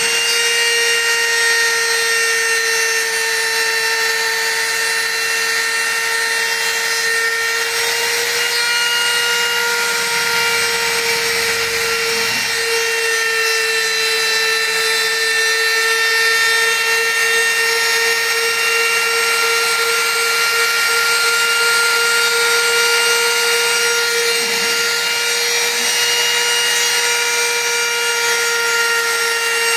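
Spindle motor of a small desktop CNC router running with a steady whine while its end mill cuts a pocket into a wooden board, with a rough cutting noise under the whine.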